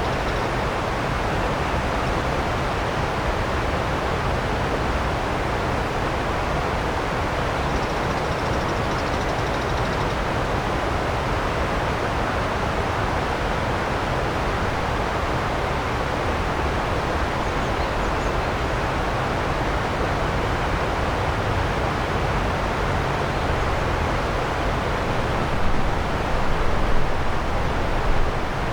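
Steady rushing of a river flowing past, with a low hum of distant expressway traffic underneath. The sound swells unevenly near the end.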